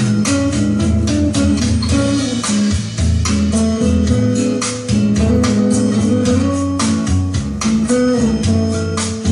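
Instrumental music with guitar and bass, played back through Bowers & Wilkins 606 bookshelf speakers driven by an EL34 tube amplifier and picked up by a smartphone in an untreated room.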